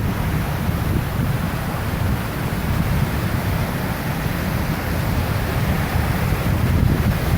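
Wind buffeting the microphone: a continuous gusty rumble over a steady rushing hiss.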